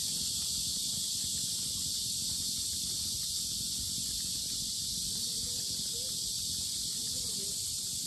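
A chorus of cicadas singing very loudly in a steady, unbroken high-pitched drone, with a low rumble underneath.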